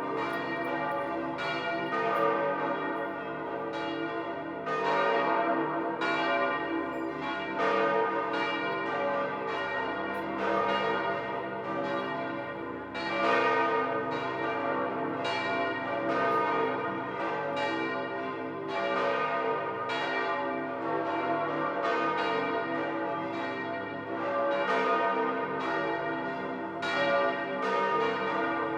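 The bells of St. Peter's Basilica ringing in full peal, many bells striking one over another so that their ringing tones overlap. This is the great peal that announces the election of a new pope.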